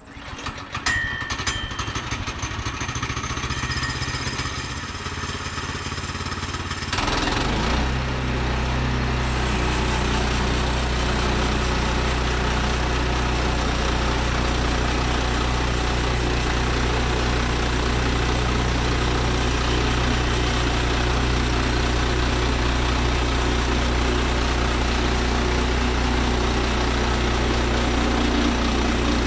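Band sawmill's gasoline engine comes on at low speed, then about seven seconds in throttles up to a steady high-speed run driving the band blade for the first cut through an oak log.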